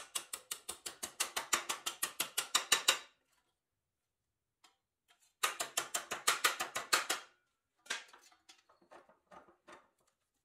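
Hammer rapidly striking a rusty pressed-steel toy truck part clamped in a bench vise, bending the metal back into shape. It is a fast run of sharp metallic blows, about seven a second for three seconds, then a second run a couple of seconds later, then lighter, scattered taps near the end.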